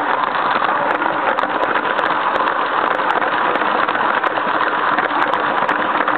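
A LEGO train running with a camera riding on it: a steady close-up rattle of plastic wheels on plastic track and the small electric train motor, with many small clicks throughout.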